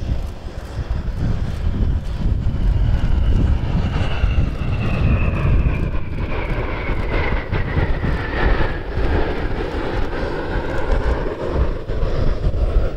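Four BAE Hawk Mk.51A jet trainers in close formation flying past, their Adour turbofans giving a deep, continuous rumble. Over it, a jet whine falls steadily in pitch through the middle as the formation goes by.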